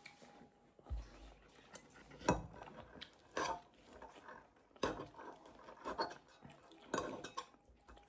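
Knives and forks clinking and scraping on dinner plates during a meal: a handful of short, separate clinks spread over several seconds.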